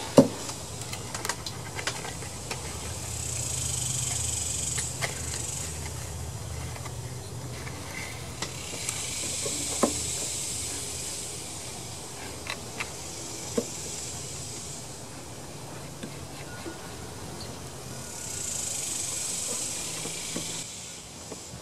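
Scattered small metal clicks and taps of a wrench on a Tecumseh mower engine as its new ignition coil is fitted and its air gap set, the sharpest one just after the start. Under them runs a steady high hiss that swells and fades every few seconds.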